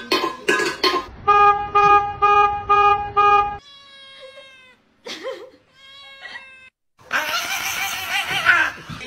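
A kitten meowing several times with a wavering pitch, then a cat hissing and spitting for about two seconds near the end. Before that come a few rhythmic knocks and a run of five identical, evenly spaced short tones.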